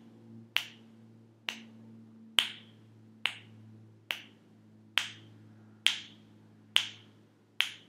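Finger snaps at an even pace, a little under one a second, nine in all: a teacher's signal beat, one snap for each month as children recite the twelve months of the year.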